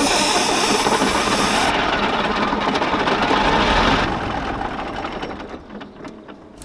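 Old Tatra truck's diesel engine running, loud for the first few seconds and then fading away over the last two or three.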